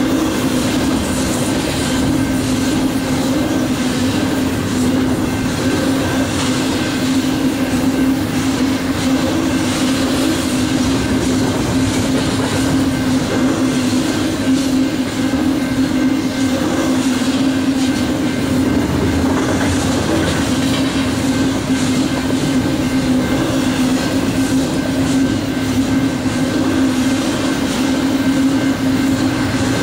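Double-stack intermodal container train rolling past close by: a steady, loud rumble of steel wheels on rail with a continuous run of fine clicks from the wheels, and a faint thin high ring over the top.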